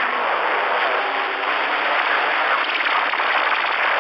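Steady rushing static hiss from a Cobra 29 LX CB radio's speaker, with the squelch open between transmissions.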